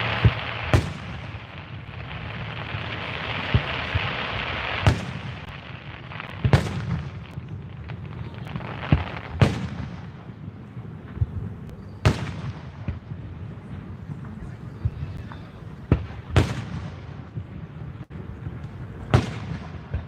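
Aerial fireworks shells bursting: sharp booms every one to three seconds, some in quick pairs, with a dense crackling hiss through the first few seconds.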